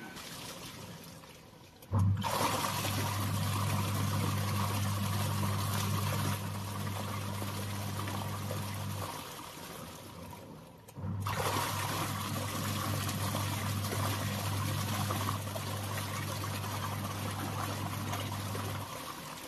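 Semi-automatic washing machine's wash motor humming as it drives the pulsator and churns the water in the tub, in two spells: it starts suddenly about two seconds in, stops for a couple of seconds, then runs again in the other direction until near the end. It is running normally forward and in reverse on a replacement 12 µF capacitor; the fault was a capacitor that had lost capacitance.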